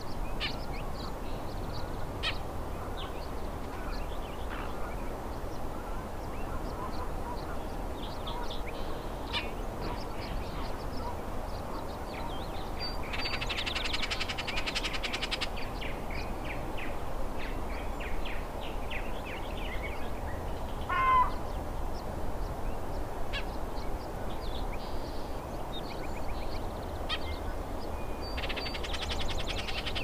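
An icterid songbird calling: scattered short notes, with a loud harsh chatter about halfway through and again near the end, and a single rising note a little after two-thirds of the way in.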